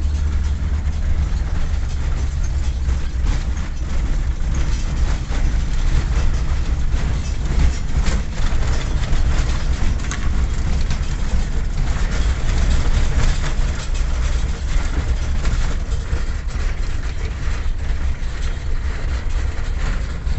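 A moving vehicle's steady low rumble with a constant noisy rush, broken by many small irregular rattles and knocks.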